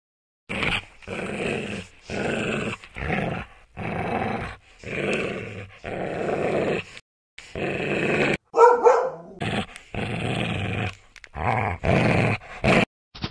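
Dog growling in a string of short rough growls, each under a second, with brief breaks between them. About eight and a half seconds in comes a higher, pitched bark or yelp.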